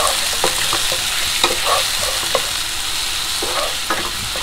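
Chopped tomatoes, onion and garlic sizzling in olive oil in a pan, with a utensil scraping and clicking against the pan at irregular moments as the sauce is stirred.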